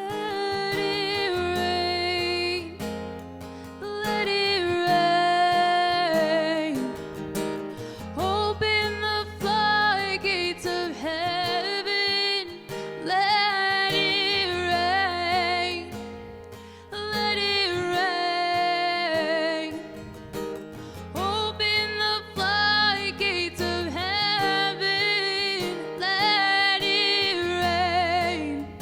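Worship song played live: acoustic guitar strumming over a low bass line, with a voice singing the melody.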